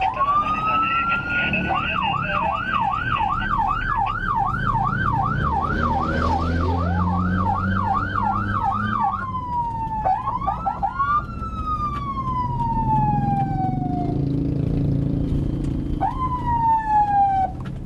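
Electronic vehicle siren switching through its tones: a rising wail, then a fast yelp of about three sweeps a second, a few quick rising whoops, and a long slow wail falling away, with one more rise and fall near the end. Low engine and road rumble sits under it.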